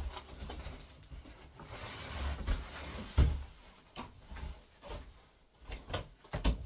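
A large cardboard box being handled as a folding fishing chair is pulled out of it: rustling and scraping with several knocks, the loudest about three seconds in and a cluster near the end.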